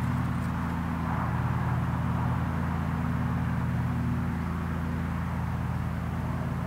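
Steady low mechanical hum under a rushing background noise, like an engine heard from a distance.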